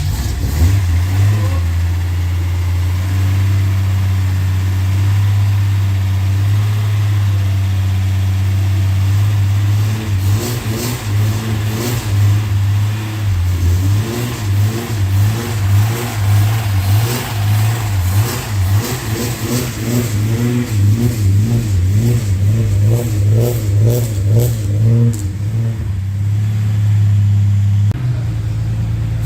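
Car engine running steadily, then revved up and down repeatedly from about ten seconds in, with sharp crackling on top of the revs, before settling again near the end.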